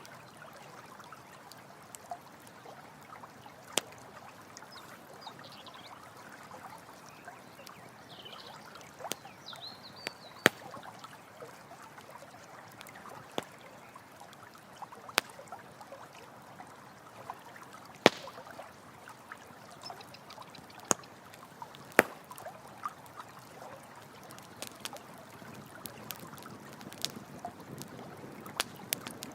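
Running water trickling steadily, with a campfire crackling over it in scattered sharp pops.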